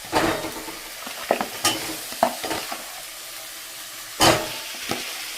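Chicken frying and sizzling in a pan, with several stirring strokes against the pan; the loudest stroke comes about four seconds in.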